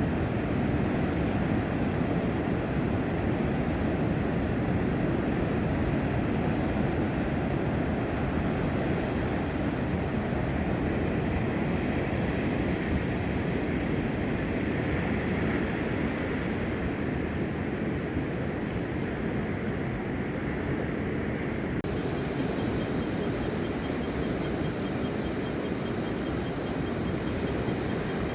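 Steady rush of ocean surf breaking on a beach, with some wind on the microphone.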